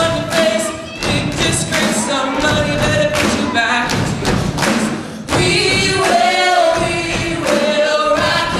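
Students singing a rock song live, with an amplified lead voice over a chorus of voices, backed by a band. Regular heavy thumping beats run under the singing.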